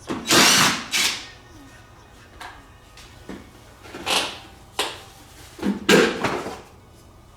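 Short scraping clunks as the airbox lid is unclipped and lifted off a Suzuki Eiger ATV: a loud one at the start, another about four seconds in, and a loud one about six seconds in.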